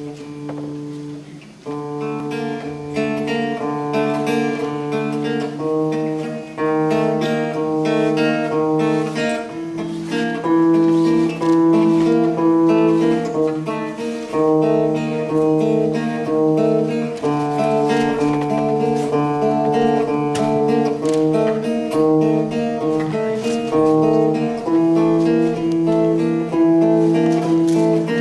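Acoustic guitar played live: a chord rings at the start, then from about two seconds in a steady, repeating fingerpicked pattern of notes.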